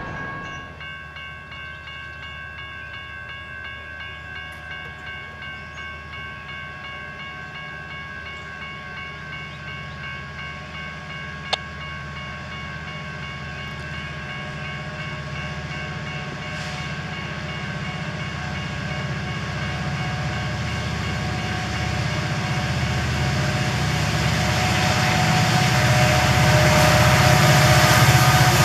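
Railroad crossing warning bell ringing steadily as a BNSF coal train led by two EMD SD70MAC diesel locomotives approaches. The locomotives' rumble grows steadily louder through the second half and is close by near the end; one sharp click partway through.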